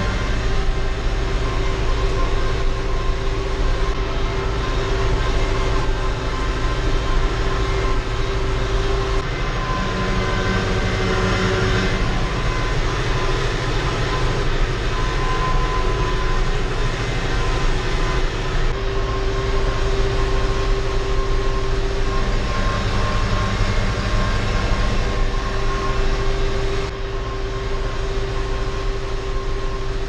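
John Deere tractor engine running under load in the cab while driving front and rear mowers through grass, a steady drone with a whine over it.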